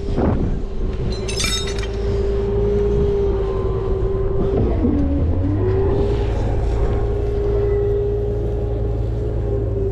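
Rollback tow truck's engine running, with a steady whine that sags briefly about five seconds in before steadying again. There is a short metallic clink-jingle near the start.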